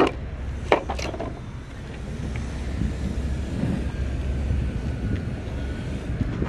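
Construction-site background noise: a steady low engine rumble from heavy machinery, with a few sharp knocks in the first second or so.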